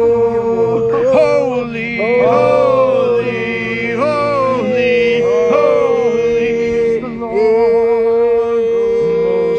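Wordless vocal groaning and wailing, the pitch sliding up and down in several long swoops, over a steady held drone tone.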